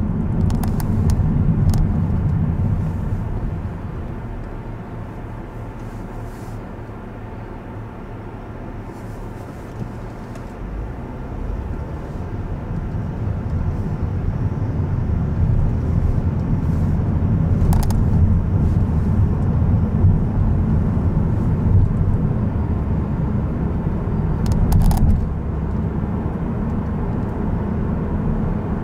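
Car driving in city traffic: a steady low rumble of engine and road noise that dips for several seconds a few seconds in, then builds up again. A few brief clicks are heard.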